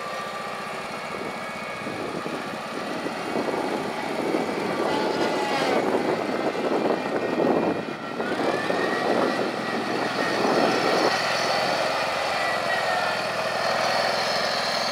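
John Deere 317 lawn tractor's Kohler KT17 17 hp two-cylinder engine running as the tractor is driven around, its pitch rising and falling.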